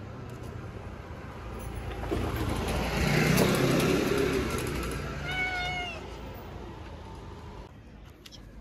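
A street cat meows once, a single short call about five seconds in. Just before it, a noise swells and fades.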